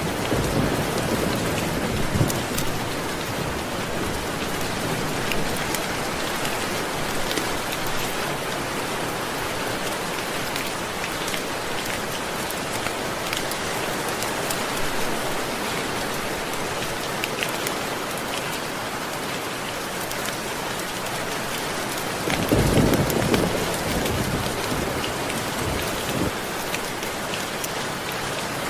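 Steady rain falling and pattering on surfaces, with a low rumble of distant thunder at the start and again about three-quarters of the way through.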